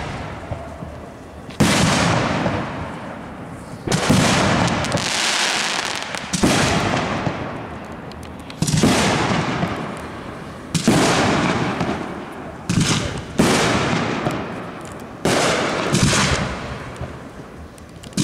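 Aerial firework shells bursting one after another, about nine sharp bangs roughly two seconds apart. Each bang is followed by a long fading tail.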